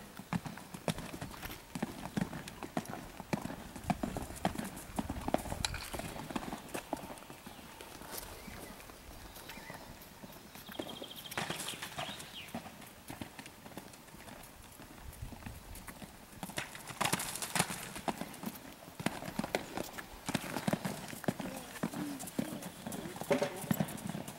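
Hoofbeats of a ridden horse moving over sand arena footing, in a repeating rhythm that comes and goes across the gaits.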